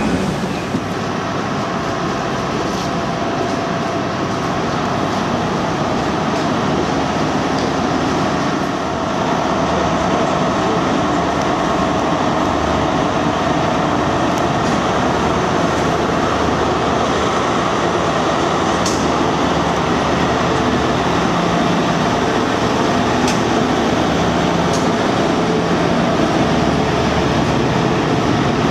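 Diesel High Speed Train with Class 43 power cars moving through the station: a steady engine drone mixed with wheel and track noise. The level steps up once about nine seconds in.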